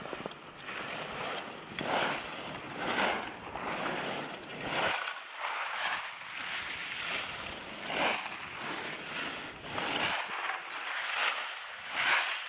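Skis swishing and scraping over packed snow as skiers link parallel turns, a swoosh about once a second, the loudest near the end.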